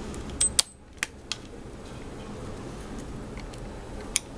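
A few sharp clicks and taps of small hard laptop parts being handled and fitted: a quick pair about half a second in, two more around a second in, and one near the end.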